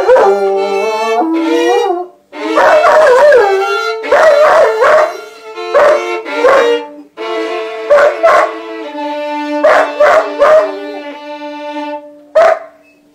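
A dog howling along with a violin. The violin plays slow, held notes, the dog's howls bending up and down over them. Both stop shortly before the end.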